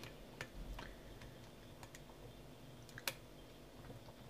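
Faint, scattered ticks and small clicks of a lock pick working the pin tumblers of a Burg Wächter Alpha Titan 900 padlock's cylinder under tension, with one sharper click about three seconds in.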